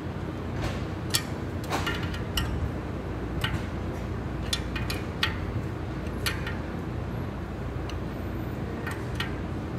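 Irregular light metallic clicks of a combination wrench being worked and repositioned on a clutch-finger adjusting bolt of a John Deere 450B steering clutch pressure plate, over a steady low hum.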